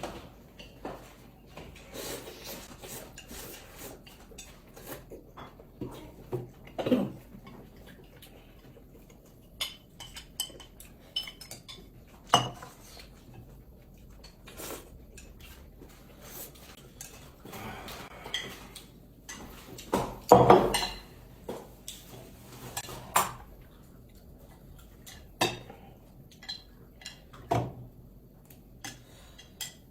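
Cutlery clinking and knocking against bowls and dishes during a noodle meal, in scattered separate clinks, with a louder clatter about twenty seconds in.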